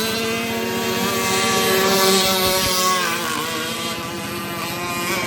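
Radio-controlled model boat's motor running steadily with a whining tone; its pitch dips briefly about three seconds in and it is a little quieter afterwards.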